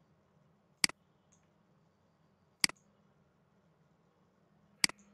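Computer mouse clicking three times, about two seconds apart, each a sharp double click of button press and release, over a faint steady low hum.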